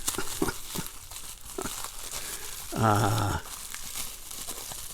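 Packing material rustling and crinkling as a package is dug through, with scattered small clicks. A short hummed vocal sound comes about three seconds in.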